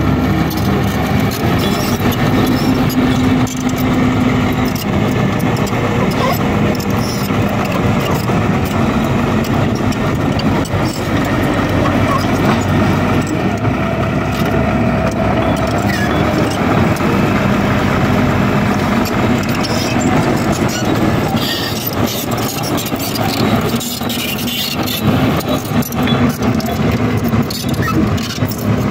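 Heavy road-construction machine's engine running steadily under work, its tone shifting a little now and then.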